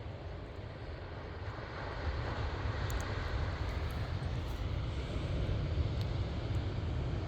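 Steady low rumble and hiss of wind buffeting the microphone on an open beach, a little louder from about two seconds in.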